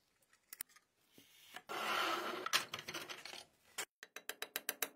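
Metal scraping on an old pencil sharpener's parts for about two seconds. Then, from about four seconds in, the sharpener's gear mechanism clicking rapidly and evenly as it is turned, about seven clicks a second.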